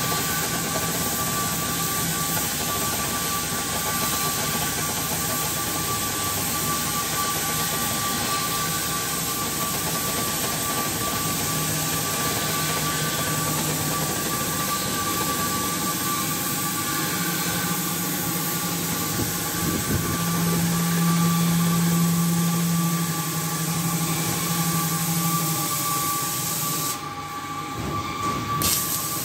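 Steady hiss of an oxy-fuel cutting torch's gas jet burning through steel plate, under a steady high tone and a low hum that comes and goes. The hiss thins out briefly near the end.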